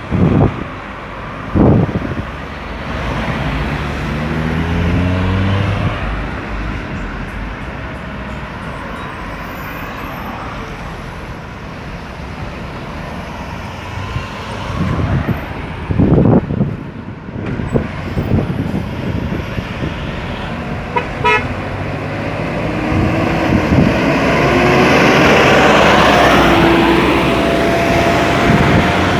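Busy roundabout traffic: cars and trucks passing and pulling away, their engines rising in pitch as they accelerate, with a car horn tooting. The traffic is loudest near the end.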